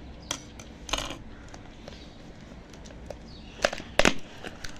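Cardboard shipping box being handled and turned in the hands: a few sharp knocks and rubs against the cardboard, the loudest near the end.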